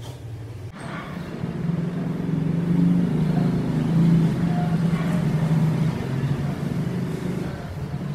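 A low engine hum, like a motor vehicle's, that grows louder over the first few seconds and then slowly fades.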